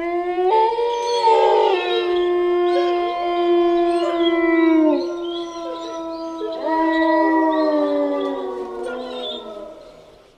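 A pack of wolves howling in chorus: several long, overlapping howls held at different pitches, some sliding down at their ends, with a fresh set of rising howls joining about two-thirds of the way in before the chorus fades out near the end.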